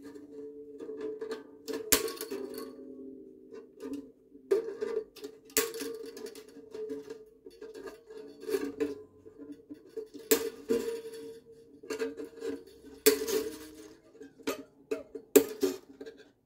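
Steel mandolin strings being snipped with side cutters: several sharp snips a few seconds apart, while the strings still on the instrument ring with a steady metallic tone that flares up at each cut.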